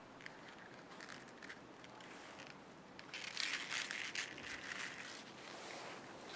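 Rustling and crinkling, with a louder stretch of crackling for about two seconds in the middle.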